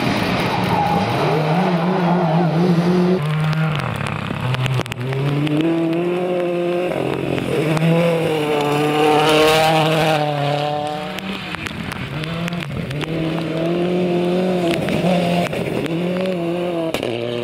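Rally cars passing at speed, first a MINI Countryman and then a Mitsubishi Lancer, their engines revving up and dropping repeatedly through gear changes and throttle lifts. Tyres slide on loose gravel in the corner.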